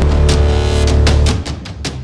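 Background music with heavy bass notes and a steady beat of drum hits. It drops in loudness about one and a half seconds in.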